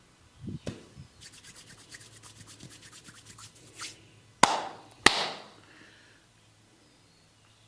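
Massage sounds: quick rubbing strokes, about nine a second for a couple of seconds, then two sharp, loud snaps about two-thirds of a second apart.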